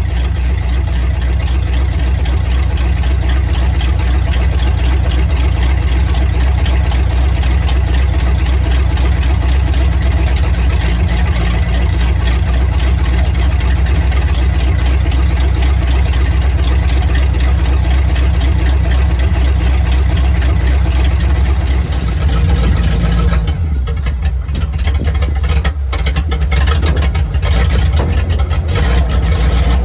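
1950 Ford F6 truck's flathead V8 running steadily at idle. A little over 20 seconds in, the upper part of the sound drops away and the running turns choppier.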